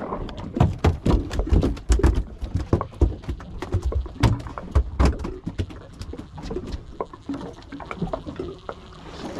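Freshly caught fish flapping and slapping on a boat's deck or in a fish box: a fast, irregular run of wet knocks, thickest in the first half and thinning out towards the end.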